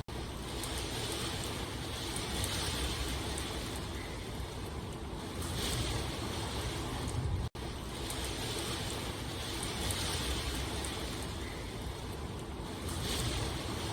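Steady rain noise, an even hiss with some low rumble. It cuts out for an instant about halfway through, and the same stretch of sound then repeats, as in a looped recording.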